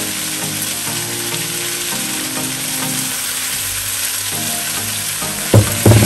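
Rice noodles sizzling as they fry in oil in a non-stick pan, soy sauce just added, with a wooden spatula stirring them. Near the end, two loud knocks as the glass soy sauce bottle is set down on the counter.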